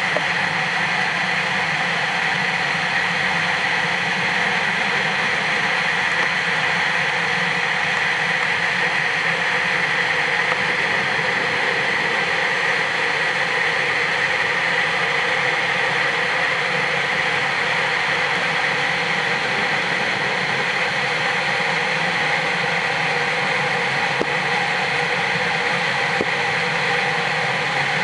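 Steady, unbroken machine-like hum and hiss heard underwater, with no rhythm or change.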